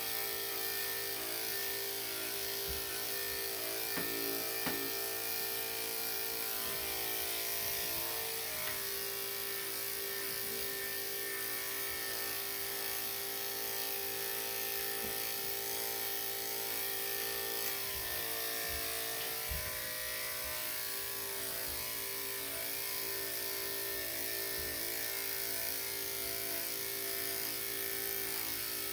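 Electric dog clippers fitted with a #5 blade, running with a steady buzz while clipping a Shih-Tzu's coat. A few soft low knocks come now and then.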